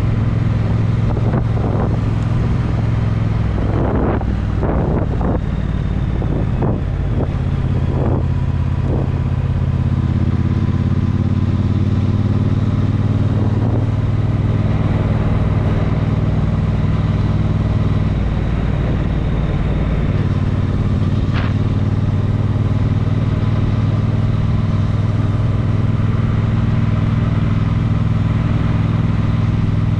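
A road vehicle's engine running at a steady speed with road noise, and a few short thumps about four to nine seconds in.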